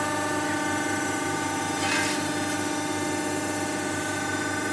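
Steady hum of a hydraulic press brake's pump motor running, with a brief scrape about two seconds in as the bent mild-steel tray is handled.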